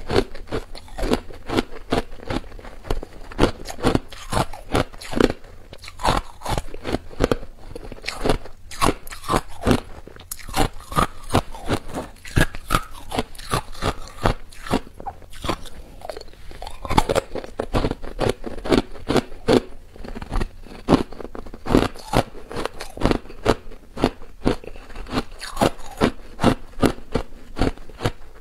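Hard clear ice being bitten and chewed close to a clip-on microphone: rapid, irregular sharp cracks and crunches, several a second, without a break.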